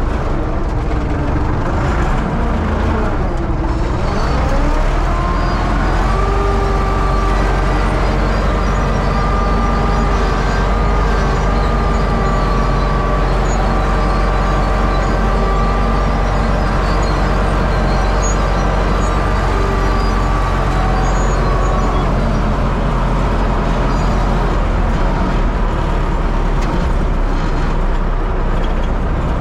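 U650 tractor's four-cylinder diesel engine running steadily under load. A whining tone dips and rises again about four seconds in, holds steady, and fades out a little after twenty seconds.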